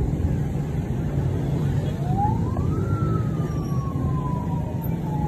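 A siren wailing once: the tone climbs for about a second, about two seconds in, then slowly falls away. Under it runs a steady low hum of engines and road traffic.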